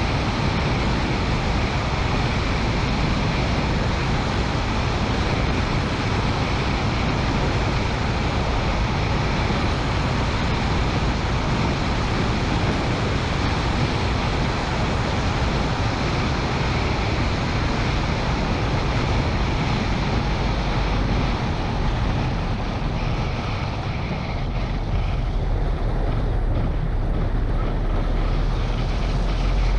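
Wind rushing steadily over an outside-mounted camera's microphone on a moving car, mixed with the car's road and engine noise. The low rumble gets heavier in the last few seconds.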